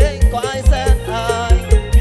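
Instrumental passage of an Isan luk thung / mor lam song played by a rot hae band: a steady, fast kick drum beat under a wavering, bending lead melody.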